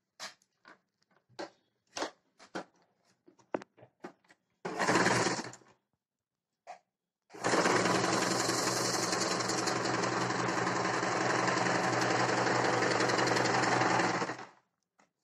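Small electric sewing machine stitching through layered sari cloth: a short run of about a second, then a steady run of about seven seconds. Before it come a few seconds of light clicks.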